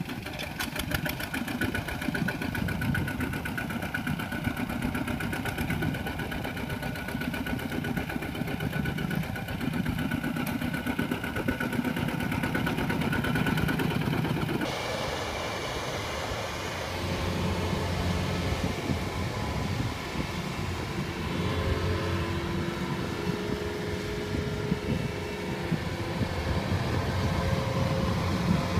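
Single-cylinder diesel engine of a Kubota RT120 two-wheel walking tractor running steadily with a rapid, even firing beat as it works through paddy mud. About halfway through the sound changes, turning duller with less high-end noise.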